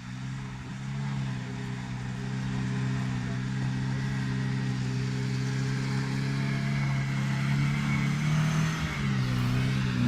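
Car engine running steadily under load while driving, with road noise beneath it; it grows gradually louder and its pitch wavers near the end.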